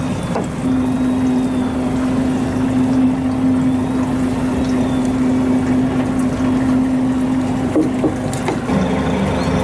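A fishing boat's engine running with a steady hum, with water washing along the hull, and a few light knocks about eight seconds in.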